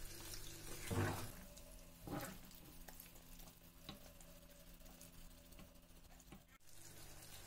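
Vegetable ragout of zucchini, tomatoes and beans simmering faintly in a frying pan, with a faint steady hum underneath and a couple of soft knocks about one and two seconds in.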